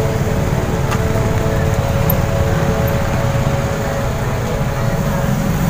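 Motorcycle engine running steadily while riding, with a low rumble and wind buffeting the microphone.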